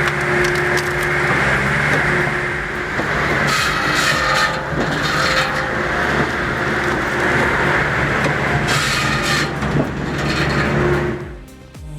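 Cord King Model 48 firewood processor running on its John Deere engine with a steady drone, while logs are cut and split with several bursts of scraping and sawing. The sound drops away just before the end.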